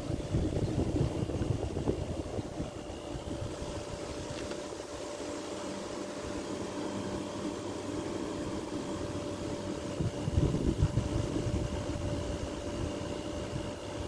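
Vintage Fedders window air conditioner running in cooling mode: a steady hum from its fan and rotary compressor with a constant mid-pitched tone. A few low rumbles come near the start and again about ten seconds in.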